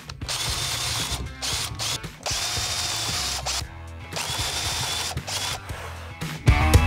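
Power drill with a spade bit boring countersink holes into a pine board, running in short bursts with brief stops between them. Music comes in loudly near the end.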